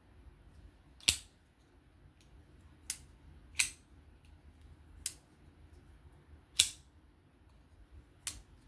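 Vosteed Acorn folding knife's blade snapping open and shut, six sharp metallic clicks about one to one and a half seconds apart, as the freshly reassembled knife's action is tried out.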